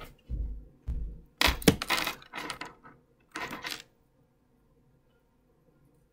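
A run of knocks, thuds and clatter, several close together, stopping about four seconds in: someone moving about and handling things close to the microphone.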